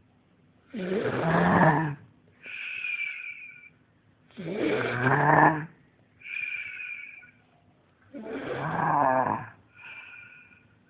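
Snoring in a steady cycle: three long, rough, buzzing snores, each followed by a shorter high whistling breath that falls slightly in pitch, about every three and a half seconds.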